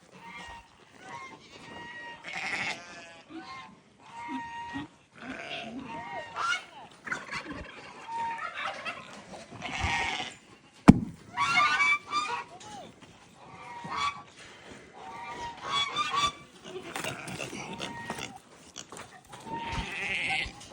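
Farm animals calling over and over, short goat bleats mixed with waterfowl honking. A single sharp knock about eleven seconds in.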